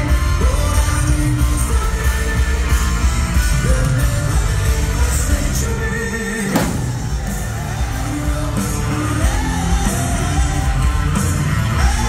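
Live rock band playing loudly with lead vocals, heard from within the crowd, with audience members yelling along. The bass thins out briefly a little past the middle before the full band comes back.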